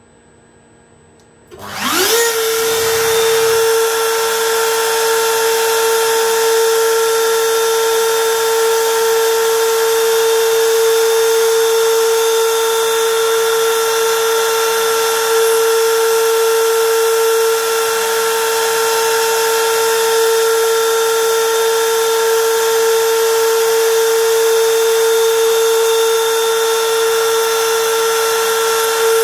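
Small high-speed milling spindle on a DIY CNC lathe spinning up about two seconds in, its whine rising quickly, then running steadily with a high whine over a constant hiss.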